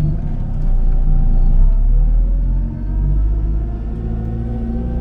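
Zastava 750's small four-cylinder engine pulling under acceleration, a deep rumble with its pitch rising. It dips briefly about two and a half seconds in, then climbs again.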